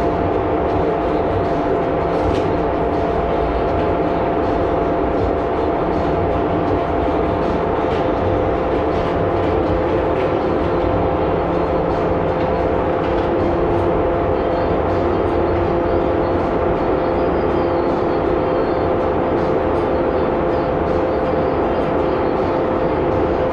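Steady machinery drone of spray-finishing shop equipment running, with several held hum tones over a dense rumble. A new hum tone comes in about a third of the way through and another about halfway.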